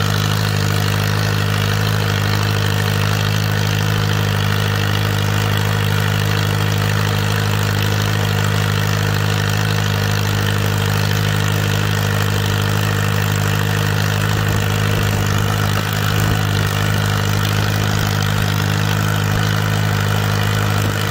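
Small vintage farm tractor's engine running at a steady speed as it drives along, heard from the driver's seat close behind the exhaust stack.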